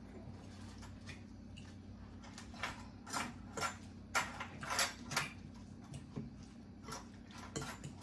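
A fork mashing bananas in a glass mixing bowl: a run of short clinks and scrapes of metal tines on glass, most of them in the middle few seconds.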